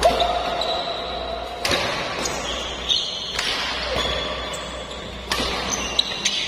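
Badminton doubles rally: racket strings striking the shuttlecock about once a second with sharp pings, between squeaks of shoes on the court floor.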